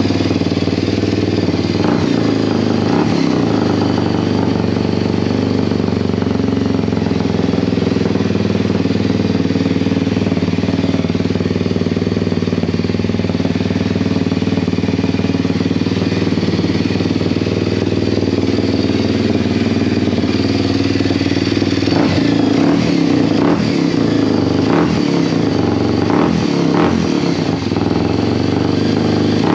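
2023 Kawasaki KLX230SM's air-cooled single-cylinder engine idling loudly through a newly fitted Norifumi Trex SS aftermarket exhaust, shortly after a cold start. The running is steady at first and grows more uneven in the last several seconds.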